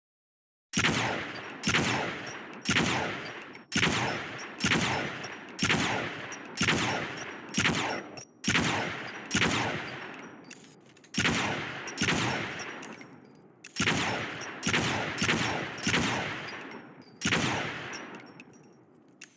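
Heckler & Koch HK33SG/1 5.56 mm rifle firing single shots, about eighteen in a row at roughly one a second. Each shot is sharp and followed by a long echoing tail that fades before the next.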